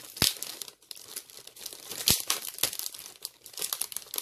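Clear plastic gift wrapping crinkling and rustling as it is handled and pulled open, with a few sharp crackles, the loudest about two seconds in.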